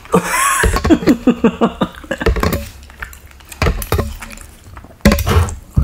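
Spoon and fork clinking and scraping against a bowl of bakso meatball soup during eating: a string of separate sharp clinks.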